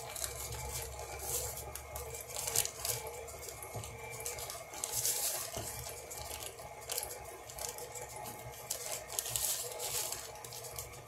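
Plastic bag of brown sugar crinkling and rustling in repeated bursts as the sugar is scooped out and measured, over the steady hum of a KitchenAid stand mixer running on low speed.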